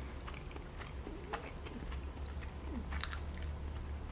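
Close-miked chewing of sushi: wet mouth sounds and small irregular clicks, over a steady low hum.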